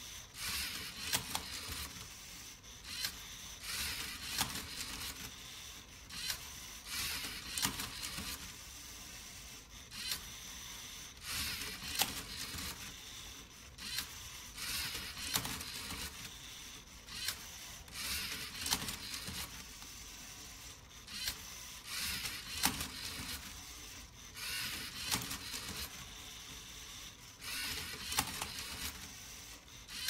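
Lego Mindstorms Rubik's cube solver at work: short bursts of motor and gear noise with sharp plastic clicks, about one every second or so, as the robot turns and flips the cube.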